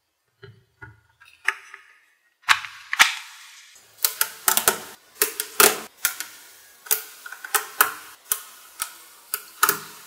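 Small magnetic balls clicking sharply as they snap onto a magnetic-ball model: an irregular run of clicks, roughly one or two a second and sometimes in quick clusters, starting a couple of seconds in after softer handling sounds.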